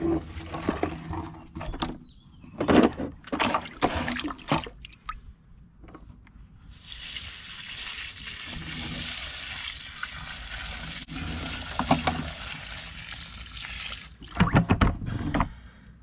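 Knocks and sloshing as a shop vac's plastic collection drum full of rusty water is handled, then water pouring out of the tipped drum in a steady splashing stream for about seven seconds.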